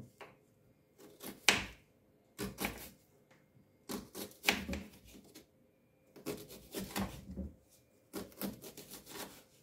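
Kitchen knife slicing a red onion on a wooden chopping board: about five short runs of quick taps as the blade cuts through and knocks the board, with brief pauses between runs.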